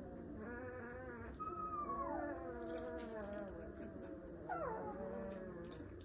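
Twelve-day-old wolfdog puppy whimpering: a run of thin, pitched cries, with a long cry sliding down in pitch about a second and a half in and a shorter, steeper falling cry near the end.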